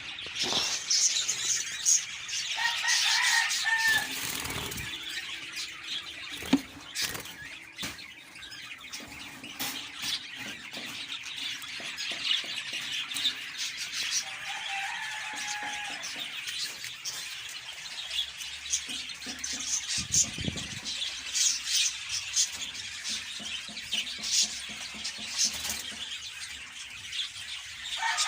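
Caged budgerigars chattering continuously in a busy warble of rapid chirps, with a few short squeaky calls and some sharp clicks or knocks.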